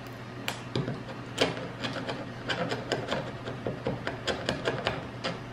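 Sharp wood chisel scraping paint off hardwood door trim: a string of short, irregular scrapes and clicks as the blade catches and lifts flakes of paint.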